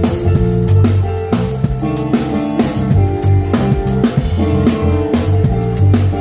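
Music with a drum kit, a deep bass line and guitar over a steady beat.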